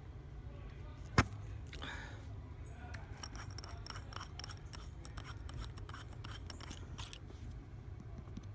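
Small metal tools of a tubeless tyre plug kit being handled: one sharp click about a second in, then a run of light clicks and scrapes as the probe tool is unscrewed from the nozzle set in the tyre.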